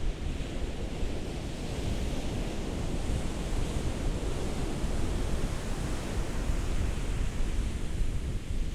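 Ocean waves washing onto a shore: a continuous rushing surf with a deep low rumble, swelling slightly in the middle.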